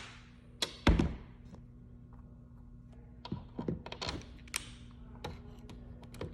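Handling knocks and light taps between power-driver runs: a sharp thump about a second in, then a scatter of small taps from about three to five seconds in, over a faint steady hum.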